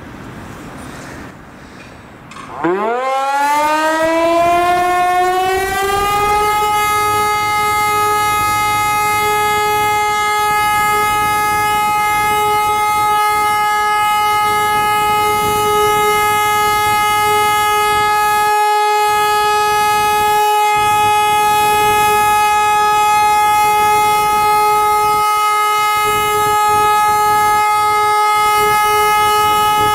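Hörmann HLS-273 compressed-air siren sounding the all-clear. About two and a half seconds in, its tone climbs over a few seconds, then it holds one steady, loud tone: the continuous all-clear signal.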